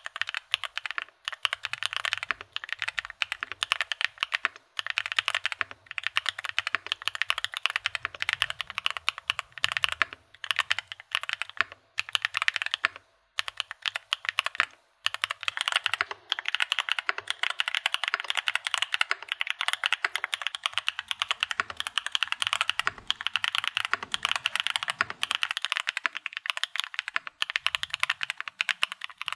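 Swagkeys Shelby 80 gasket-mount mechanical keyboard being typed on at a fast, steady pace, with linear 02 switches under GMK keycaps. The run of keystrokes breaks off briefly a few times.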